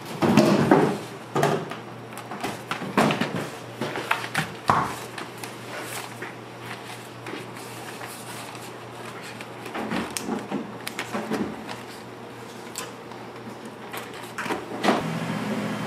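Irregular knocks, taps and clatter of things being handled and set down in a small kitchen, over a steady low hum.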